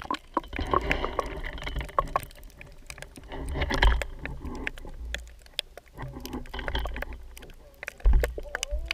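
Underwater sound picked up through an action camera's waterproof housing: muffled rushing and low rumbling surges of moving water, strongest about four seconds in and near the end, with many scattered sharp clicks and crackles.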